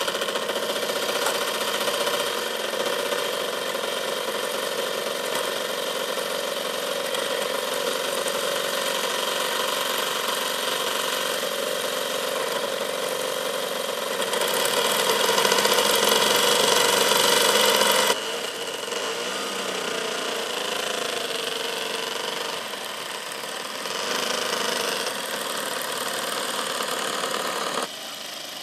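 The twin DLA32 two-stroke petrol engines of a large RC Transall C-160 scale model running steadily. They grow louder for a few seconds past the middle, then the level drops suddenly, and it drops suddenly again near the end.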